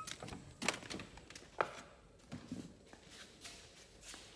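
Door lever handle and latch clicking as a steel entry door is opened, followed by a few scattered light knocks and footsteps.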